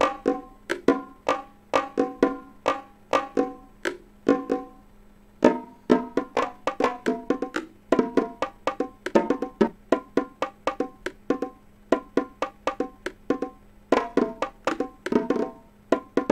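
Electronic techno beat playing from a Maschine groovebox: a busy loop of pitched, woody tom hits processed through a grain-stretch effect, with a short break about five seconds in.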